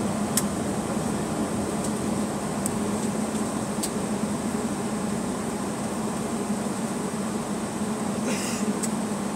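Steady cabin drone of a Boeing 757-232 taxiing: the engines at idle under the hiss of the cabin air. A few light ticks are heard, and a short rustle comes near the end.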